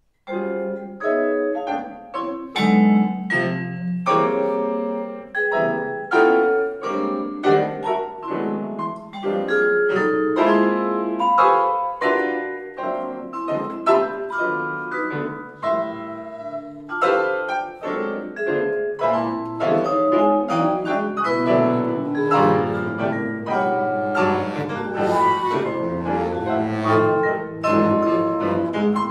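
Contemporary chamber quartet of bass flute, baritone saxophone, piano and mallet percussion playing live, starting abruptly from silence with a dense run of short struck and sustained notes.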